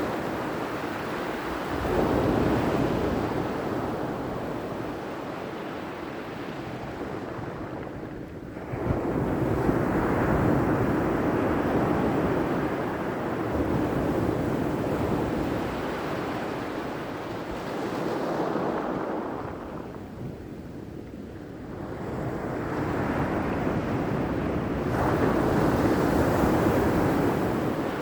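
Ocean surf: waves breaking and washing back in a steady rolling wash, swelling to a louder surge four times with quieter lulls between.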